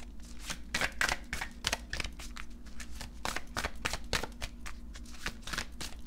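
A deck of Moonology oracle cards being shuffled by hand: a quick, irregular run of card clicks and slaps, several a second.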